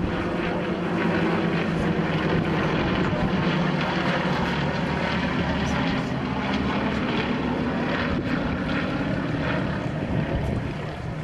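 Propeller engines of two aerobatic planes flying overhead in formation, a steady drone that eases off slightly near the end.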